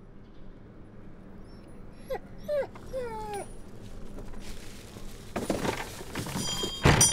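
A boxer dog whimpering: three short whines, each falling in pitch, about two seconds in. Near the end, a loud knock with a short high ringing.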